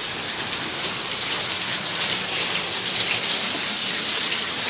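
Heavy rain pouring down together with rushing flash-flood water, a steady loud hiss.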